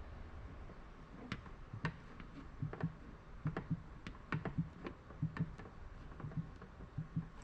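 Light, irregular taps on a car door panel during paintless dent repair, roughly two a second, starting about a second and a half in.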